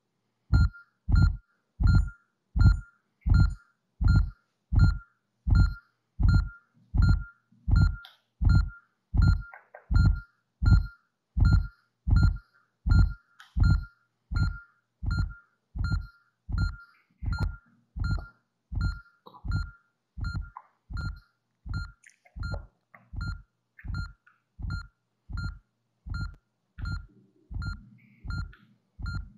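A simulated heartbeat from the Insight Heart app: a steady deep thump about 80 times a minute, each beat with a short beep like a heart monitor's. The beats grow a little softer after about twenty seconds.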